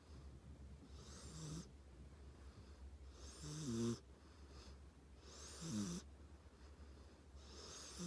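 A sleeping pet snoring loudly, a snore about every two and a half seconds, each a breathy hiss followed by a low rasping rumble. The loudest snore comes about three and a half seconds in.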